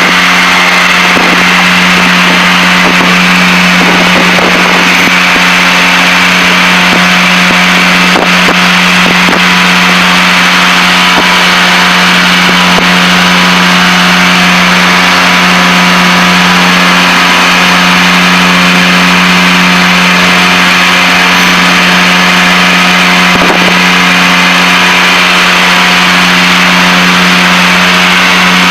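Piper Seneca's twin turbocharged piston engines and propellers droning steadily in the cockpit during the climb, a constant low hum over a steady roar of noise.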